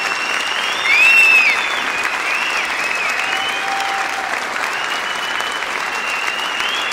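Large theatre audience applauding steadily, with high whistles rising and falling over the clapping; the loudest whistle comes about a second in.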